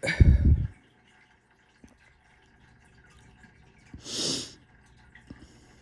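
A person's deep, low burp right at the start, lasting about half a second. About four seconds in comes a short, hissy breath.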